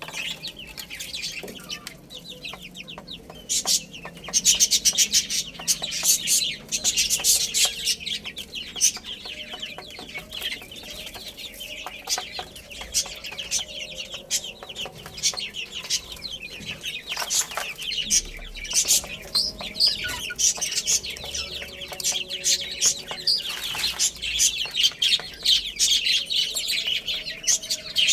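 A flock of baby chicks peeping continuously, a dense chorus of many short, high chirps overlapping, busiest in bursts about a quarter of the way in and again near the end.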